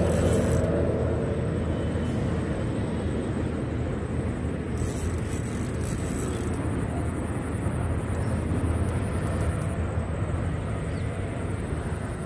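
Steady low rumble of outdoor ambience, with a few brief high hisses about five seconds in.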